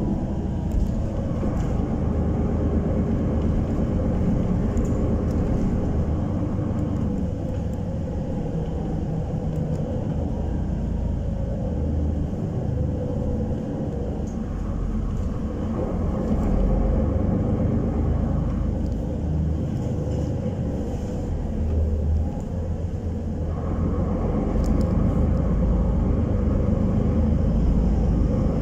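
Solaris Urbino 12 city bus heard from inside the cabin while driving: a steady low engine and road rumble, with a higher hum that comes and goes three times.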